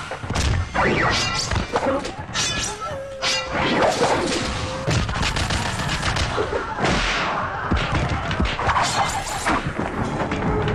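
Film fight-scene sound effects: a rapid, dense string of punch, kick and stick-hit impacts, with a held tone about three seconds in.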